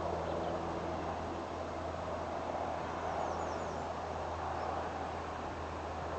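River rapids rushing steadily, with a few short bird chirps over the top, a quick run of them about three seconds in.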